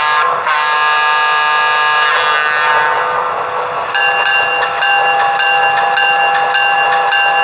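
Sound decoder of a Broadway Limited Paragon 3 model PRR P5a electric locomotive, played through its small speaker, sounding the horn: one long chord from about half a second in to about three seconds. A second, differently pitched horn chord starts about four seconds in and is held.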